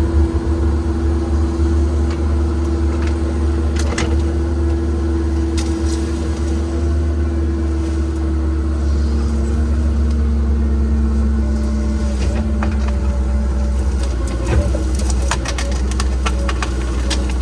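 Cat 306 excavator's diesel engine running steadily with a hydraulic whine, its pitch changing about ten seconds in. Scattered sharp snaps and clicks come through it, thickest near the end.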